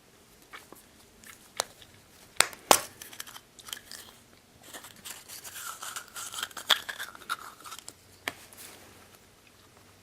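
Hands handling small plastic toy packaging: a few sharp plastic clicks and snaps, then a few seconds of crinkling and rustling, and one last click.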